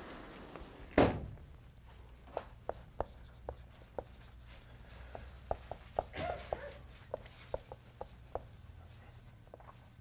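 Dry-erase marker writing on a whiteboard: an irregular string of short taps and strokes, with one louder knock about a second in, over a faint low hum.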